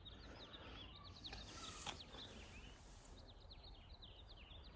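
Faint small birds chirping in rapid runs of short, high notes, with a brief soft hiss about a second and a half in.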